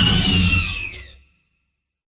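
Utahraptor vocal sound effect: one shrill call over a low rumbling layer, its pitch falling, fading out after just over a second.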